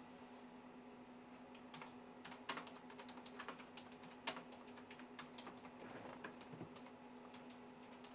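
Computer keyboard keys being typed, a faint run of irregular clicks that begins about a second and a half in, with a few sharper keystrokes among them. A steady low hum runs underneath.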